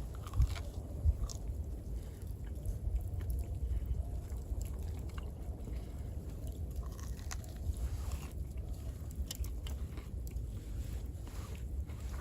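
A person eating close to the microphone: chewing and biting with small irregular crunches and clicks, two sharper ones about half a second and a second in, over a steady low rumble.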